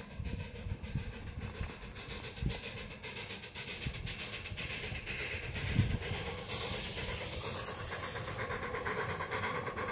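7¼-inch gauge Hunslet miniature steam locomotive approaching with its train: a burst of steam hiss about two seconds long just past the middle, then the train's running noise on the rails growing louder near the end.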